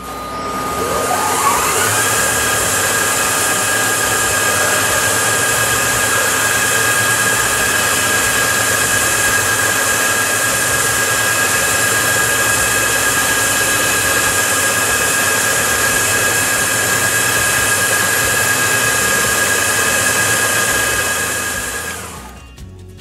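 Planetary abrasive belt polishing machine starting up with a rising whine about a second in, then running steadily with a loud belt hiss as a bent brass faucet spout is pressed against the belt. The sound falls away near the end.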